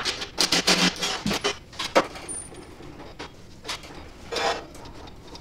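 Irregular metallic clanks and rattles as steel lift parts and hardware are handled, with one sharp knock about two seconds in.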